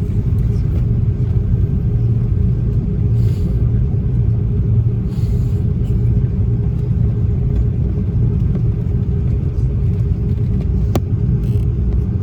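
Steady low rumble inside an Airbus A330-300 cabin while it taxis, from its Rolls-Royce Trent 700 engines at idle and the wheels rolling, with a steady hum over it. A single sharp click about eleven seconds in.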